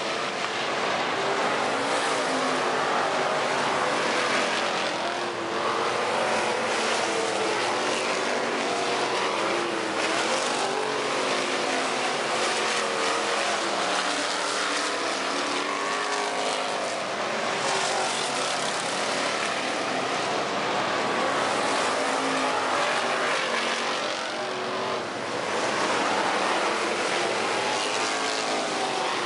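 A pack of hobby stock race cars running laps on a dirt oval, several engines overlapping, their pitch rising and falling as the cars pass and pull away.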